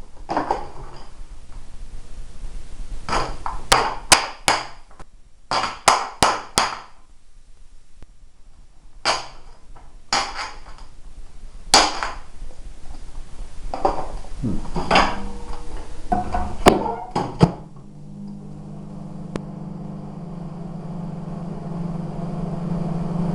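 Clicks, knocks and clatter of a microwave oven and its dish being handled, then a microwave oven starting about 17 seconds in and running with a steady low hum.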